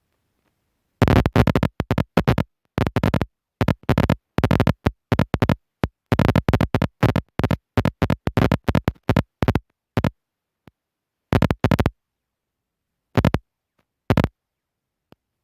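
Harsh buzzing noise in loud, choppy bursts separated by dead silence, starting about a second in and thinning out near the end; it sounds like a corrupted or glitching recording.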